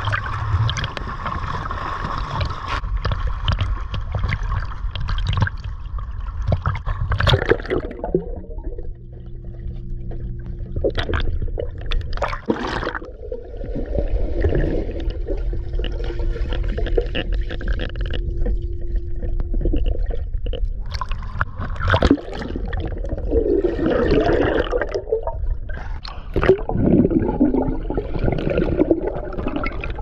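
Pool water splashing around an action camera at the surface as a swimmer strokes, then, about eight seconds in, the muffled gurgling and bubbling of the camera underwater, with a steady low hum in the water.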